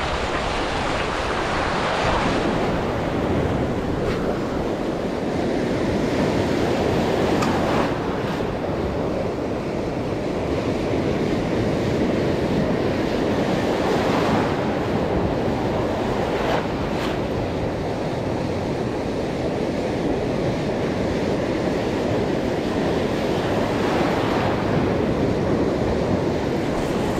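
Ocean surf breaking and washing up the beach, swelling and easing every few seconds, with wind buffeting the microphone.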